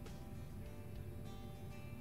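Quiet background music with guitar.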